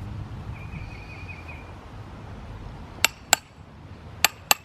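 Hammer striking a steel chisel to dress a limestone block. There are four sharp, ringing taps in two pairs, about three and four and a half seconds in.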